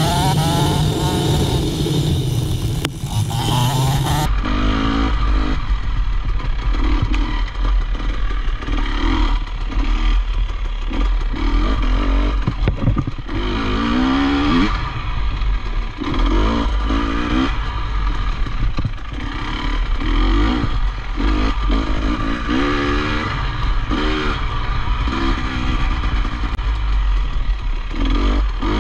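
Dirt bike engine under race riding, revving up and dropping back every second or two as the throttle is worked, with knocks and rattles from rough ground and a low wind rumble. A loud rushing hiss covers the first four seconds.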